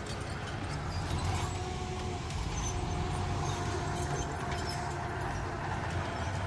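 A heavy earthmoving machine's diesel engine running steadily with a deep rumble. A faint steady whine sits over it, with scattered clicks and clanks.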